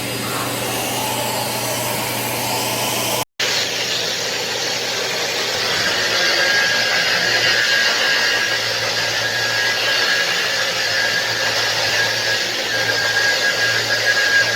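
Electric polisher-sander running against a marble countertop: a steady machine whine over a grinding hiss. It breaks off for an instant about three seconds in, then runs on with a clearer high whine.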